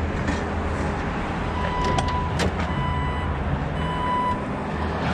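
A steady low engine-like rumble, with a sharp latch click as a car door is opened and three short, evenly pitched electronic beeps.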